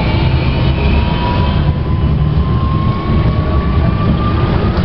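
Alstom Citadis tram heard from inside while running: the traction inverter and motors whine in a single tone that rises slowly and steadily in pitch as the tram speeds up, over a constant low rumble from the running gear on the rails.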